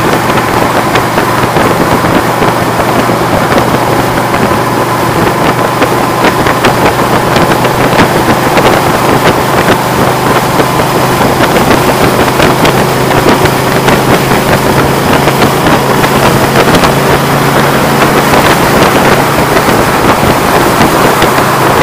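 Vehicle cruising at highway speed: a steady engine hum under loud road and wind noise, with wind buffeting and crackling on the microphone.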